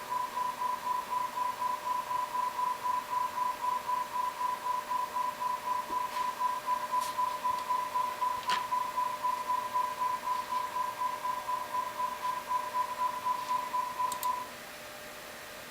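Steady 1 kHz test tone of the kind used to measure an amplifier, wavering slightly in loudness about four times a second, with a few faint clicks; it cuts off about a second before the end.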